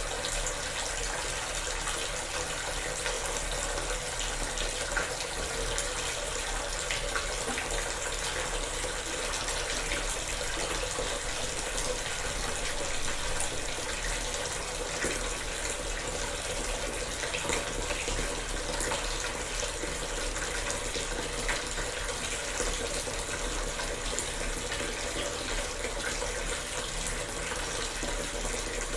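Water running steadily from a tap into a bathtub as it fills, a continuous even rush with small splashes.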